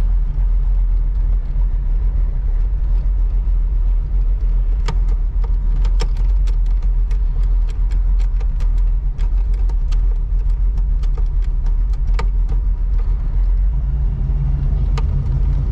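1985 Oldsmobile Cutlass Supreme engine, fitted with headers, running with a steady low rumble on its newly installed carburetor without stalling. A few sharp clicks come through it.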